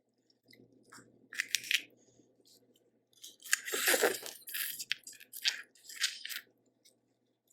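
Close-miked eating sounds of a seafood-boil meal: bites and crackly, wet chewing in irregular bursts, loudest around the middle.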